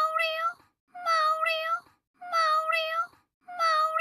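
A cat's meow sound effect looped: the same short recorded call repeated four times, about a second and a quarter apart, with dead silence between repeats.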